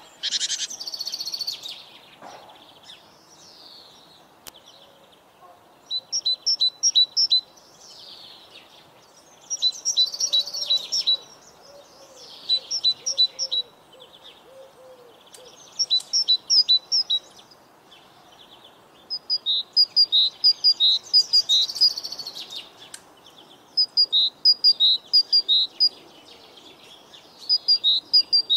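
Songbirds singing. One bird repeats a short phrase of quick, high two-pitched notes every couple of seconds, and other birds chirp between the phrases.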